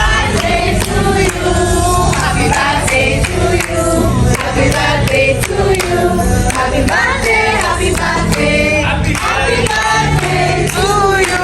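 Several voices singing together, choir-like, over music.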